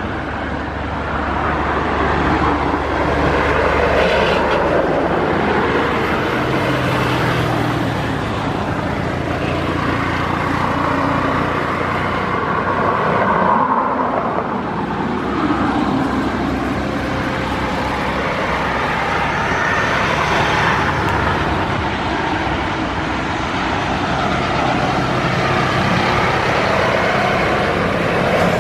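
Boeing 787-8 Dreamliner's Rolls-Royce Trent 1000 jet engines running steadily at low power as the airliner rolls slowly along the runway. It is a steady broad rush with a low hum underneath.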